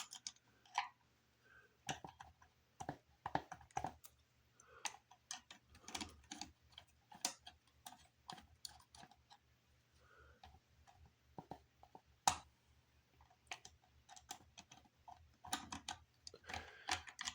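Irregular clicks and knocks of plastic fan housing parts being handled and worked apart by hand, with a sharper knock about twelve seconds in and a cluster of clicks near the end. A faint low hum runs underneath.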